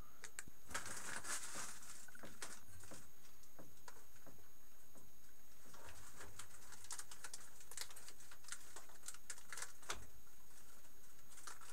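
Hands working on the belt drive of a benchtop mill to change spindle speed: irregular clicks, taps and knocks as the belt cover and pulleys are handled and the rubber V-belts are moved.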